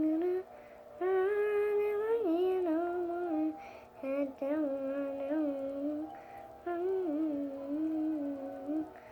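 A girl's voice singing a tune to herself, in phrases of held notes with short breaks between them.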